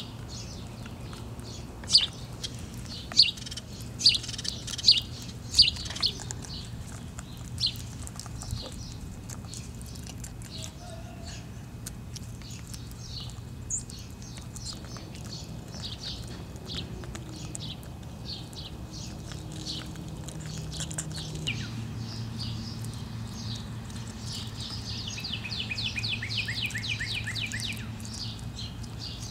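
A hen's beak pecking at the ground: a series of sharp taps, loudest in the first eight seconds or so, over a low steady hum. Faint chirps run through, and near the end a bird gives a rapid trill of short notes.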